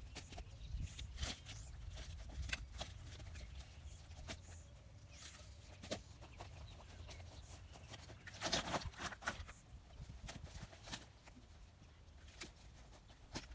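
Dry wooden branches knocking and clattering as they are handled and dropped onto a woodpile, faint and scattered, with a denser run of knocks about eight and a half seconds in.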